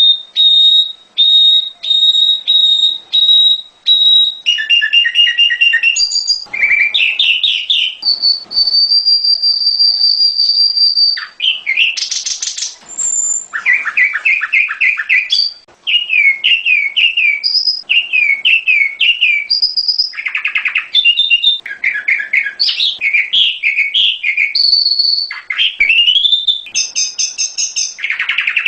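Prenjak gunung songbird singing loudly and without pause in a varied sequence of high whistled notes: held steady whistles, quick runs of repeated chirps and short falling phrases. This is a lure recording for getting caged birds to answer and sing.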